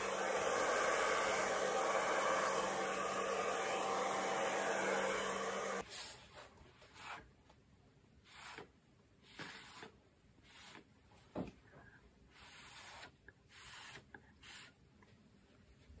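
Hair dryer blowing steadily with a low hum, switched off suddenly about six seconds in. After that come faint, scattered scratches of a thin metal tool dragging through wet acrylic paint on a canvas.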